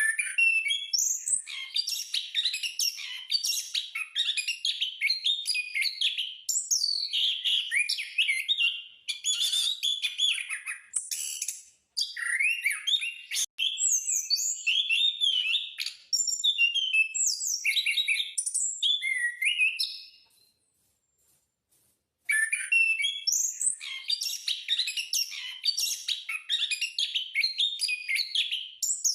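Anis (punglor) thrush singing at full tilt: a long, fast run of varied chirps, whistles and trills, broken by a pause of about two seconds some twenty seconds in.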